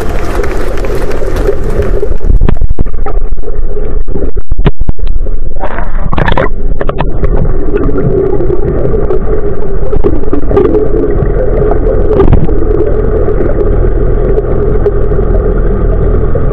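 A motor running steadily, heard through a camera underwater: a wavering hum over a deep rumble, with a cluster of knocks and rushes about three to seven seconds in.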